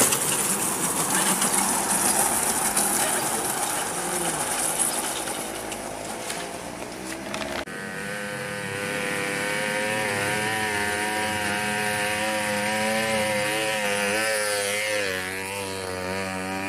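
Motorcycle engine passing close and fading over several seconds. After an abrupt change, a motorcycle engine runs steadily with a slightly wavering pitch.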